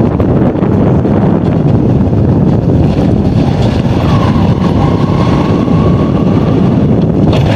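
Motorcycle running along a road, its engine and the wind rushing over the microphone blending into one loud, steady roar. A faint high tone holds for a couple of seconds midway.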